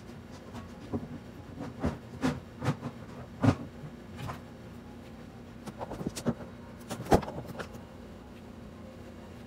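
Irregular knocks and clatters of household things being handled, loudest about three and a half seconds in and again about seven seconds in, over a low steady hum.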